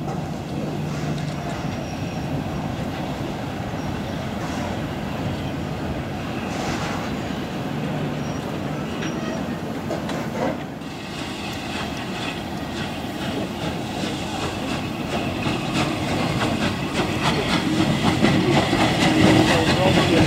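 SR West Country Class steam locomotive 34007 'Wadebridge' moving slowly tender-first with its train, steam hissing and the running gear and wheels on the rails growing louder from about two-thirds of the way in as it comes past.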